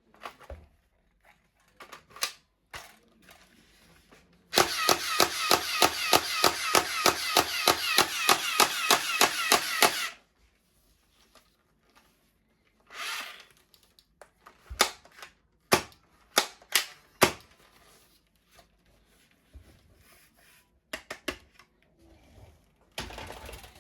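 Toy gun's electronic firing sound effect: rapid repeated shots, about five a second, each with a falling chirp, running for about five seconds. Scattered single clicks come before and after it.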